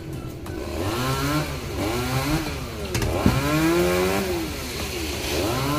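Chainsaw engine running while sawing into a coconut tree, revving up and falling back about five times so its pitch swings up and down. There is a short sharp knock about three seconds in.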